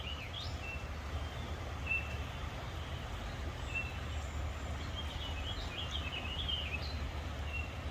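Small birds chirping and trilling on and off, most busily near the end, over a steady outdoor hiss and low rumble.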